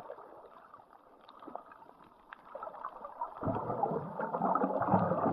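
Muffled underwater water noise with faint scattered clicks, growing louder about three and a half seconds in.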